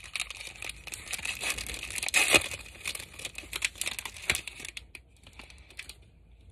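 Plastic wrapper of a football trading-card pack being torn open and crinkled, loudest about two seconds in, the rustling stopping shortly before the end.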